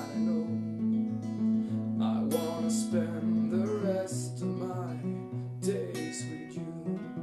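Acoustic guitar strummed in a steady song outro, with a singing voice coming in with a few wordless wavering notes in the middle.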